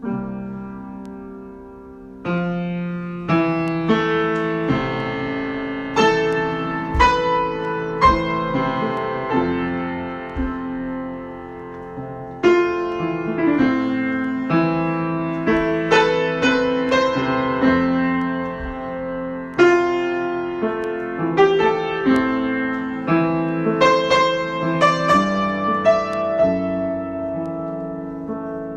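Solo piano improvisation: chords and single melody notes struck and left to ring, played in phrases that swell and ease off, with fresh phrases starting strongly at about 12 and 20 seconds in.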